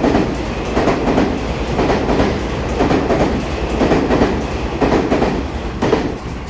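EMU3000 electric multiple unit train rolling past close by, its wheels clicking over the rail joints in a steady rhythm of about two beats a second. The sound eases near the end as the cab end goes by.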